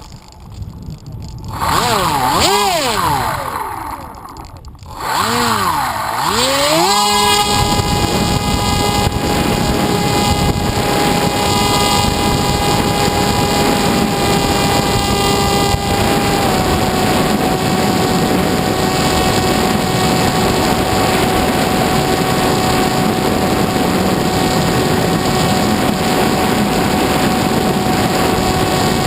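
Motor and propeller of an FPV model aircraft: the throttle swings up and down a few times, then is held high in a steady, high-pitched whine that dips slightly in pitch midway.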